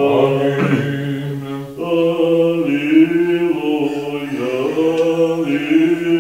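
A male voice chanting an Orthodox liturgical prayer in long held notes, moving in small steps of pitch, with brief breaks for breath about two seconds in and again later.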